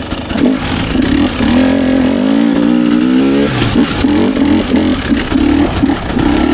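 Dirt bike engine revving: its pitch climbs for a couple of seconds, then comes in short choppy bursts of throttle on and off, and settles to a steadier pull near the end.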